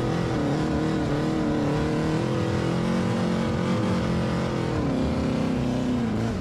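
Rail buggy engine running hard at steady revs, its note wavering slightly, then dipping lower about five seconds in.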